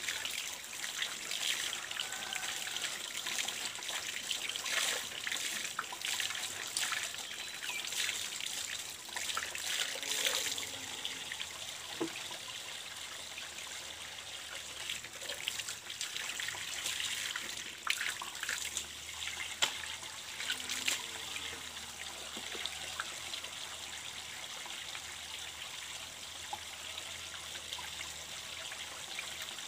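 Water running from the open end of a PVC pipe and splashing onto the ground, with irregular splashes as cloth diapers are rinsed by hand in the stream.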